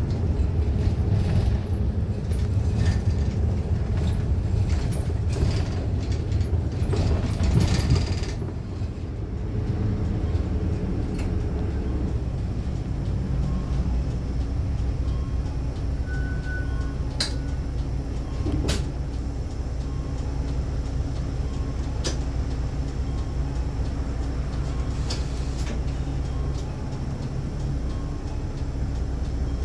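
The running engine and road noise of a city bus, heard from inside the cabin as a continuous low drone. It is louder and rattly for the first eight seconds or so, then settles into a steadier hum. A short beep sounds around the middle, and a few sharp clicks follow.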